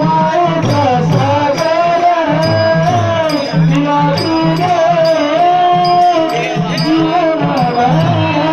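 Marathi devotional song music: a held, gliding melodic line over a steady drum beat with regular small cymbal strikes.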